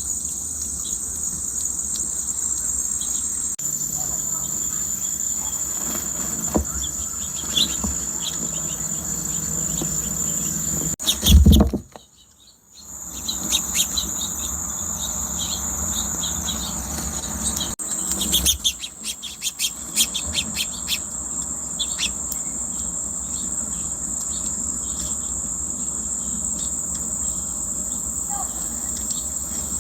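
Steady high-pitched drone of crickets with scattered bird chirps. A loud thump comes about 11 seconds in, followed by a brief dropout. A quick flurry of short ticks and patters follows a few seconds later.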